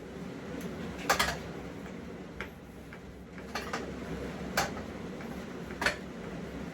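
Irregular sharp metallic clicks and taps of hand tools working the nuts on a pit bike's exhaust, about six over several seconds, over a steady low background hum.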